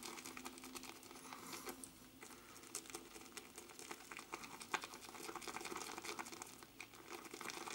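Semogue 620 boar-bristle shaving brush swirled over shaving soap in its tub: a faint, fine wet crackling and scratching as the soap is loaded onto the bristles.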